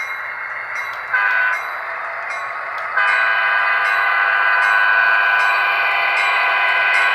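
Sound decoder of a Fox Valley GP60 model diesel locomotive playing its horn through the model's small speaker: one short blast about a second in, then a long blast starting about three seconds in, over the steady sound of the diesel engine.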